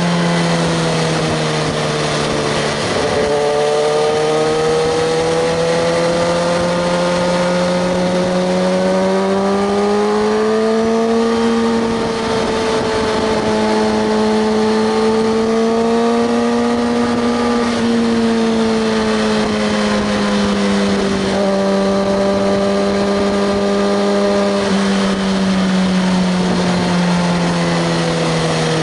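Kawasaki ZX-6R 636's inline-four engine running steadily at cruising speed, its note slowly rising and falling, with brief dips about three seconds in and again around twenty-one seconds.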